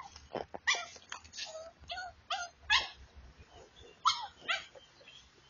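A dog giving a quick string of high, excited yips and short barks, about ten in all, with a short pause after about three seconds and a last pair near the four-and-a-half-second mark.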